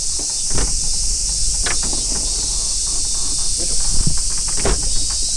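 Insects droning steadily at a high pitch, with short splashes and knocks from a hooked black bass thrashing at the surface beside a boat, the loudest about four seconds in.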